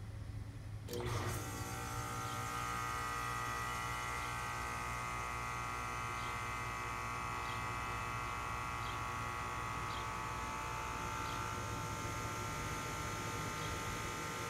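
Condensing unit energised as the contactor is pushed in about a second in, then a steady electric motor hum and whine. The condenser fan motor is slow to start and doesn't reach full speed: the motor is failing.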